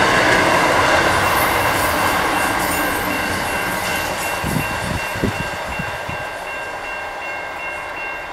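Double-stacked container wagons of a long freight train rolling past on the rails, the wheel and rail noise slowly fading as the end of the train draws away. A thin steady high ring sits over it, with a few low thumps about halfway through.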